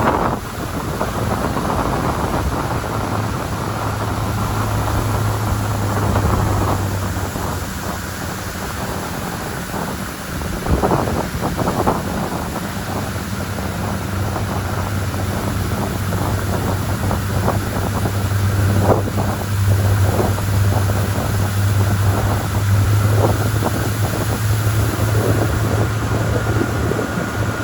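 Motorboat engine running steadily at speed, with water rushing past the hull and wind buffeting the microphone in occasional gusts.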